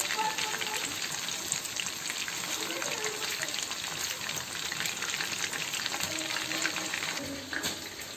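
Chicken pakoda deep-frying in hot oil in a kadai: a dense, steady crackling sizzle, with a wire skimmer stirred through the oil. The sizzle falls away near the end.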